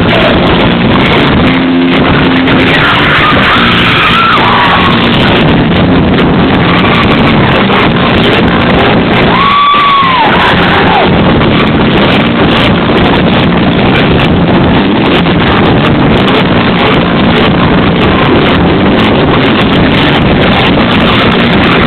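Live country band playing loud, with guitars, recorded close to full level on a cell phone's microphone, so the sound is dense and distorted.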